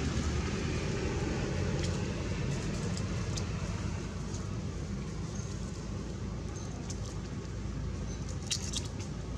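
Steady low outdoor rumble with a few faint, scattered clicks and light crackles, a small cluster of them near the end.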